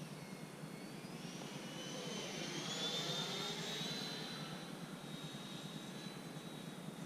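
High whine of an 80 mm electric ducted-fan RC jet in flight, growing louder to a peak about three seconds in and then fading as it passes.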